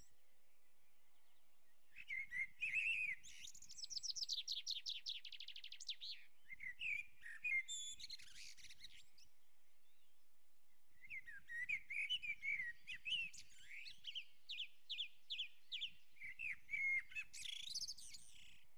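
A songbird singing in two bouts of high chirps and whistled notes with a pause between. The first bout holds a fast trill of repeated notes, and the second holds a run of quick strokes.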